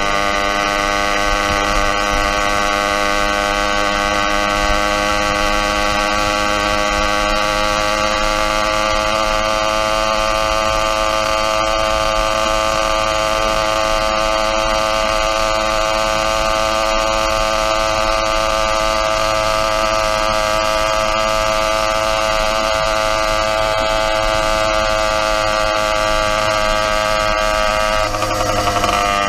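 Motorized bicycle's YD100 engine running steadily while cruising, a droning note with many overtones. Near the end the revs dip briefly and then pick up again.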